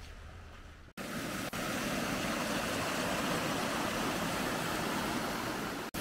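Steady rush of falling water from a waterfall. It starts abruptly about a second in and holds even.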